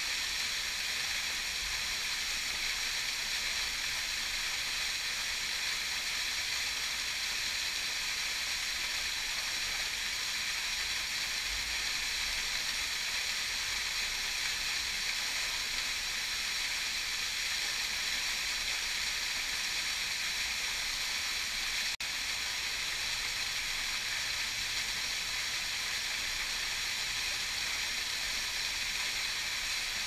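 Small waterfall pouring into a plunge pool: a steady rushing hiss of falling water and spray, heard through a GoPro's waterproof housing.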